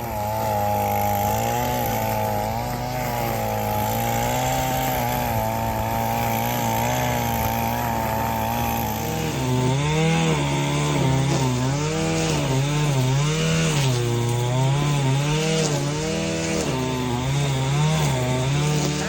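Gas string trimmer engine running, its pitch rising and falling as it cuts through grass and weeds, with bigger and faster swings from about halfway on.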